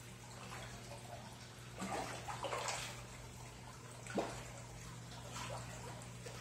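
Tambatinga fish splashing at the water surface of a tank as they take pellet feed, over steadily trickling water. There is a cluster of splashes about two seconds in, a sharper one a little after four seconds, and a smaller one later.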